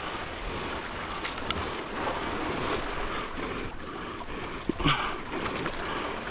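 Small sea waves washing against a concrete breakwater, with wind buffeting the microphone. A single sharp click about a second and a half in.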